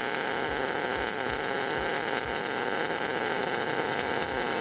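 MIG welding arc running steadily from an Everlast Lightning MTS-275 feeding 0.035 in 70S-6 wire at about 300 in/min and 20 V. It is laying a vertical-down bead to build up weld metal on a steel square-tube corner.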